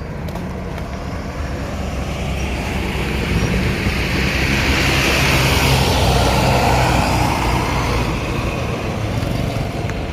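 A large bus passing close by: low diesel engine rumble and road noise swell to a peak about halfway through, then fade as it moves away. No horn sounds.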